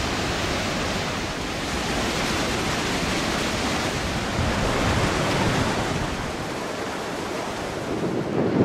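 Rushing whitewater of the glacier-fed Isel mountain river, a steady, even roar.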